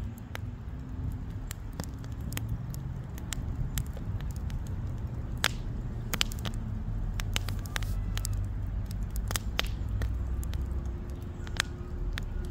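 Wood fire crackling in a fire pit: irregular sharp pops and snaps over a steady low rumble.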